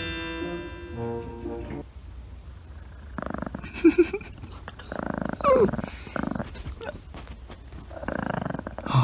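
A short musical chime rising in pitch, then a small Pekingese-Chihuahua mix dog growling in repeated bursts, broken by a few sharper snarls: a warning growl at another dog disturbing it while it is being massaged.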